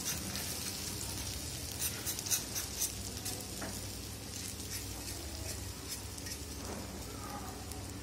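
Beaten egg mixture sizzling and crackling in hot oil and butter on a flat tawa, with the light scrape of a spoon spreading it out, mostly in the first few seconds.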